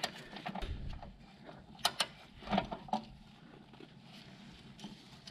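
A few scattered light metallic clicks and ticks of a wrench working the brake hard-line nut as it is snugged down onto the stainless brake hose fitting.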